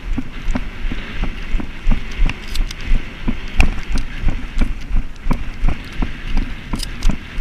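Footsteps of a person walking quickly through dry grass, heard as regular thumps about three a second on a body-worn camera, over a steady rustle of dry grass and wind on the microphone.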